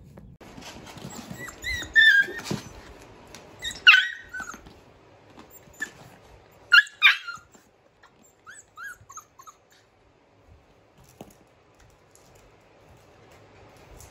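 Australian Shepherd puppies, five weeks old, giving short high yelps and whimpers, loudest about two, four and seven seconds in, with a few softer whines just after.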